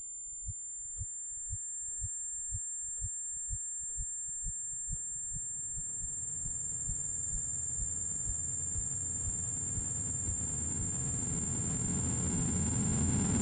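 Heartbeat sound effect in a film score: low thumps, about two a second at first, that speed up and run together after about five seconds into a low drone that keeps growing louder. Thin steady high tones sit over it.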